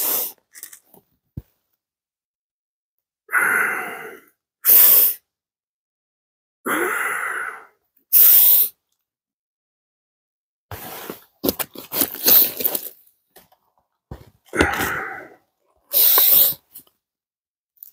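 A man's loud, close breathing: three times a long breath followed by a short sharp hiss, with a patch of light crackling in between.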